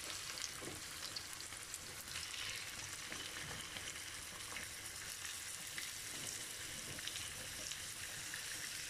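Raw peeled shrimp sizzling in hot oil with garlic and parsley in a frying pan, just added and starting to sauté: a steady hiss with fine crackles.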